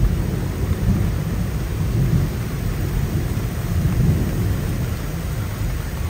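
Steady rushing roar of a creek in flood, the brown water racing high under the bridge, with heavy rain falling. A low rumble that surges and eases.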